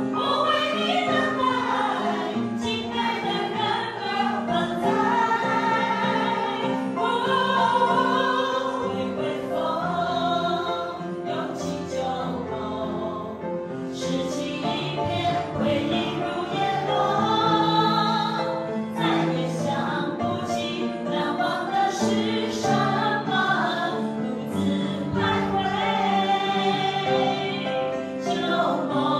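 A class of mostly women singing a Mandarin pop ballad together, accompanied on a live upright piano.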